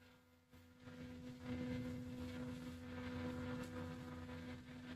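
Two energized 230 V AC contactor coils humming: a faint, steady electrical hum with a clear tone, fading in about a second in.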